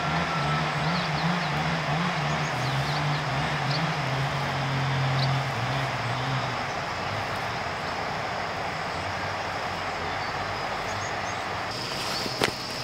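A distant engine running, its low hum shifting up and down in pitch before fading out about halfway through, over a steady outdoor hiss. A few short clicks come near the end.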